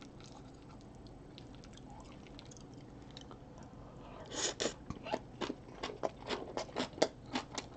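A person chewing a mouthful of fried rice and kimchi with wet, smacking mouth clicks, about three a second, starting about four seconds in after a spoonful goes in. Before that there are only a few faint ticks.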